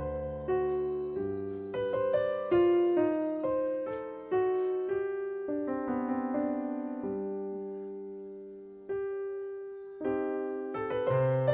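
Background piano music: a slow run of notes, each ringing out and fading, with one long note held and dying away just past the middle.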